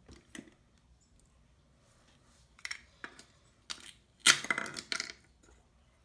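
Velcro tearing apart as a toy plastic food piece is split in two: a loud rasping rip lasting under a second, about four seconds in. Before it, a few light clicks and knocks of plastic pieces handled on a wooden cutting board.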